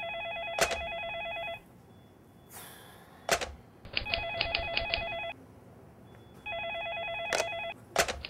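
Telephone ringing in three short warbling bursts about three seconds apart, with a few sharp clicks between the rings.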